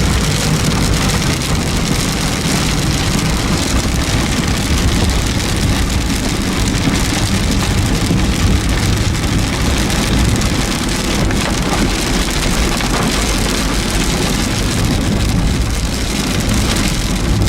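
Heavy rain pouring steadily on a car, with the low rumble of the car running underneath.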